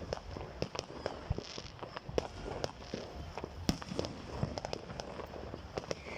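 Fireworks crackling: many irregular sharp pops and cracks in quick succession.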